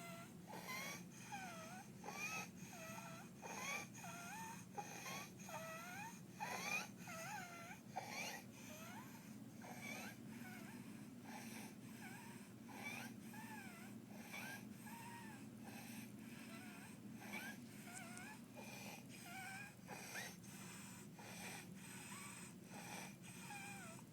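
A toddler with croup breathing fast and laboured at rest, with a high-pitched squeaking stridor on her breaths, roughly one to two a second, louder in the first few seconds. The stridor comes from an inflamed, narrowed voice box and windpipe, and together with the strained breathing at rest it is a warning sign that needs medical attention.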